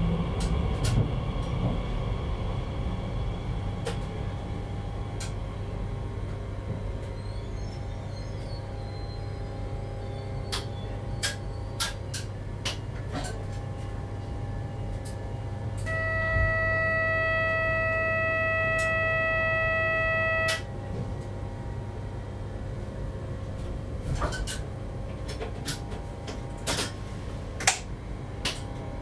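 Cab of a Z50000 Francilien electric train standing at a station: a steady low hum from the train's equipment with scattered small clicks. Past the middle, a steady electronic warning tone sounds for about four seconds and stops abruptly.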